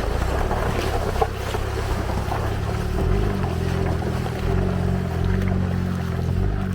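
A lifted 4x4's engine runs low and slow, its pitch rising and falling a little, as it crawls over a rough, eroded dirt trail, with rattles and crunching from the rocky ground and some wind on the microphone.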